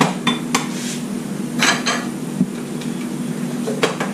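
Measuring spoon clinking and scraping against a container of cornstarch and a saucepan while cornstarch is scooped in: a couple of light clicks, a short run of scrapes about a second and a half in, and another click near the end.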